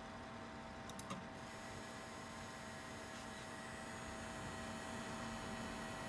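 Coil whine from an RTX 3080 graphics card: its chokes are vibrating at audible frequencies, making a steady, faint whine of several held tones. It is typical coil whine, not a malfunction, and does no harm to the card. A small click sounds about a second in.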